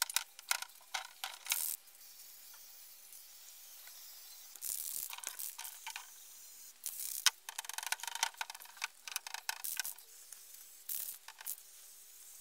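Aerosol spray can of varnish being shaken, its mixing ball rattling in several bursts of quick clicks.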